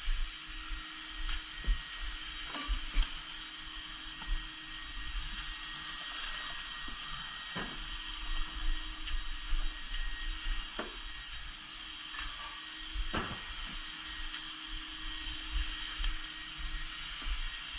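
Steady rushing hiss of air-moving equipment with a faint hum, broken by a few short, light knocks and rustles.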